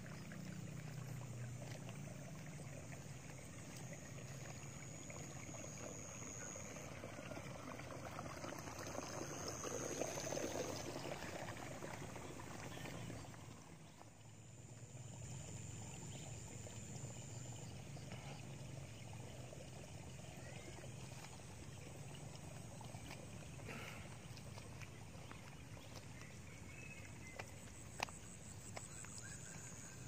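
Water trickling and gurgling through flooded rice paddies and their irrigation ditch, a steady low babble that swells a little around ten seconds and dips briefly soon after.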